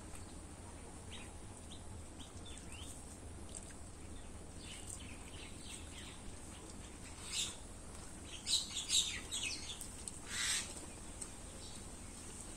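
Small birds chirping: scattered short chirps, with a louder run of quick calls from a little past the middle. A steady low hum runs underneath.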